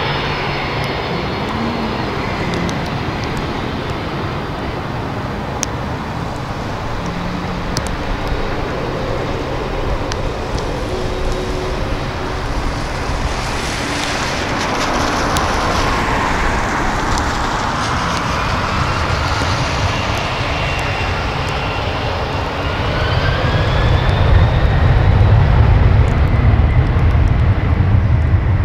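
Boeing 767-300 freighter's twin jet engines running as it taxis onto the runway, then spooling up with a rising whine to takeoff power. A deep rumble grows louder over the last few seconds as the jet begins its takeoff roll on the wet runway.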